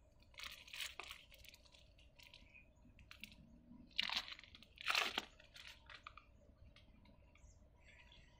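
Thin plastic shrink wrap crinkling and tearing as it is peeled off a deck of cards. It comes in short crackly bursts, the loudest two about four and five seconds in.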